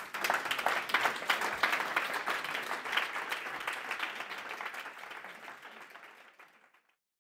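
Audience applauding, the clapping gradually fading out near the end.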